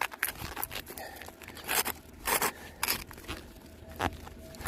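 Asphalt roof shingles being handled and pried at: several short, separate rough scrapes, crackles and tearing sounds of the gritty shingle surface.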